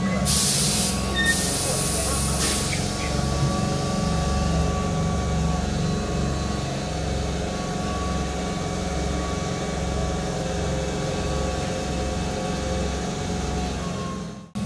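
Keihan electric train at the station platform: a loud burst of air hiss lasting about two seconds at the start, then steady, low, rhythmic throbbing of the train's machinery with a faint steady whine. The sound stops abruptly near the end.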